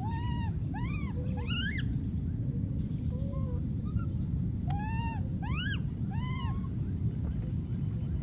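A baby macaque calling in high squeals, each rising and falling in pitch: three near the start, a few softer short calls, then three more about five seconds in, the calls of an infant crying for a companion. A steady low rumble runs underneath.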